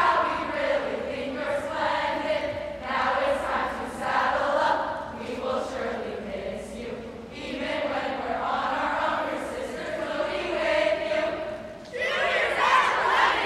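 A large group of voices singing together in long, drawn-out phrases, then breaking into loud crowd shouting near the end.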